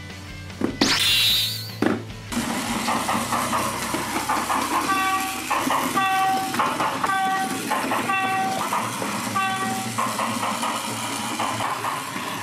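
A battery-powered toy train's small electric motor whirring steadily as the train runs along the track, after a loud rustle lasting about a second and a half near the start. A short pitched tone repeats about once a second over the whirring.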